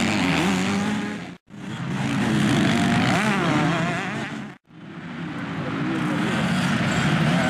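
Several motocross bike engines revving up and down. The sound cuts out abruptly twice, about a second and a half in and again about four and a half seconds in, each time starting again on a new burst of revving.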